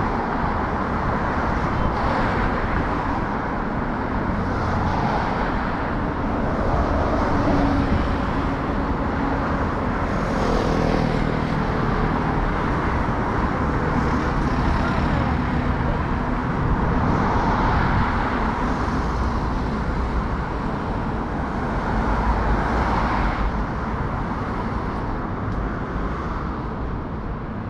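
City street traffic, steady and fairly loud, with cars passing one after another every few seconds.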